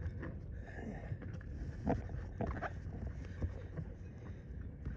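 Knocks and clicks of a thick mooring line being pulled around and tied at a mooring ball from a dinghy, with one sharper knock about two seconds in, over a steady rumble of wind and water.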